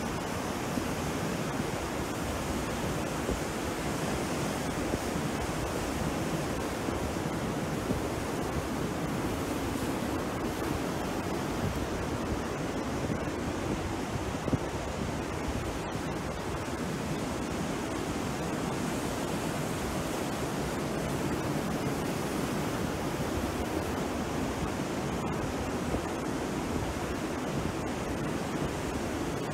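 Surf from a rough, choppy sea breaking and washing onto a beach: a continuous, even rush of water with no single crash standing out.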